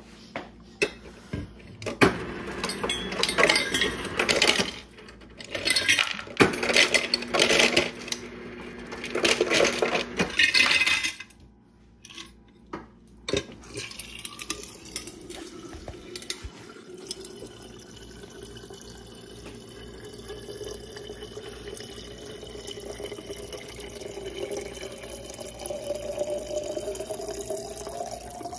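Refrigerator door dispenser filling an insulated stainless-steel water bottle. For the first ten seconds or so there are loud clattering bursts, in three spells, of ice dropping into the bottle. From about fourteen seconds in there is a steady stream of water whose pitch rises slowly as the bottle fills.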